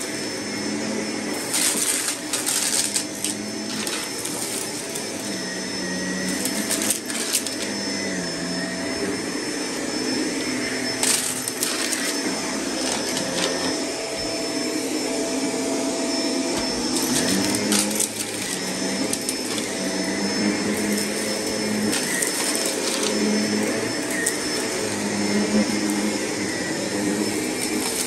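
Vacuum cleaner running steadily, its motor pitch wavering slightly, with short bursts of crackling as grit is sucked up.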